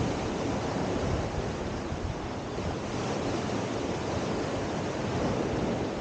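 Small Adriatic Sea waves breaking and washing up onto a sandy beach: a steady rush of surf that swells and eases gently.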